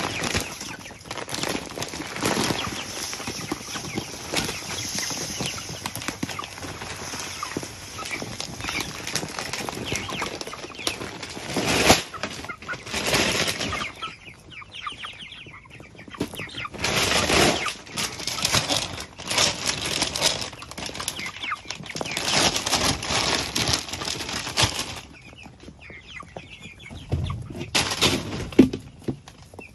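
A flock of broiler chickens clucking while feed is poured out of a bag, a steady rustling hiss for the first ten seconds or so, followed by bursts of pecking and scuffling in the straw.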